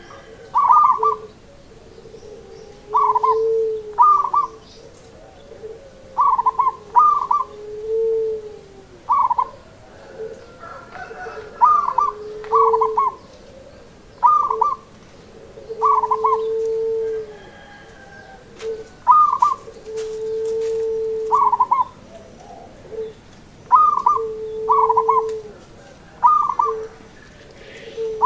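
Zebra dove (Javanese local perkutut) cooing its rhythmic song. Each phrase is a few short, higher notes followed by one long, lower coo, repeated every two to three seconds.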